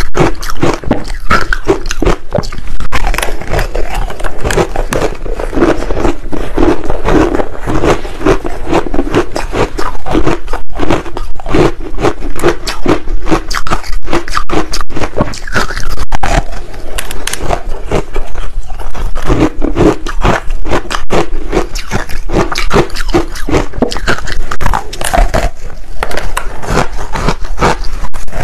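Close-up crunching and crackling of soft frozen ice balls coated in green barley powder being bitten and chewed, a dense, unbroken run of crisp crunches.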